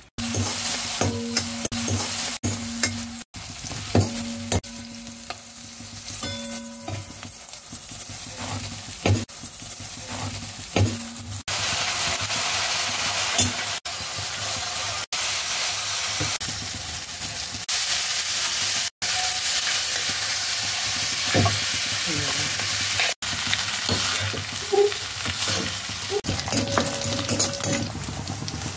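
Green peas, carrots and curry leaves frying in oil in a kadai, sizzling steadily, while a spatula stirs and knocks against the pan. Near the end, lentils sizzle in hot oil for the tempering. The sizzle breaks off abruptly a few times where the clips are cut.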